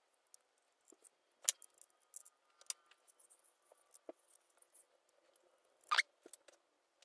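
Faint handling noises of fingers pressing double-sided tape strips onto the edge of a tablet's metal case: small scattered taps and clicks with light rustling. The two sharpest clicks come about one and a half seconds in and just before the end.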